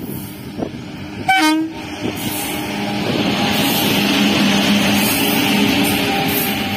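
An Indian Railways WAP-7 electric locomotive sounds one short horn blast about a second in. The locomotive and its coaches then pass close at speed: a steady loud rush of wheels on rail with a low hum, loudest about four to five seconds in.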